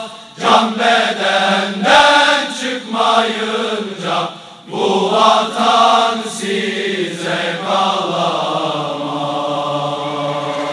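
Voices chanting, the pitch moving from note to note, then settling into one long held note for the last few seconds.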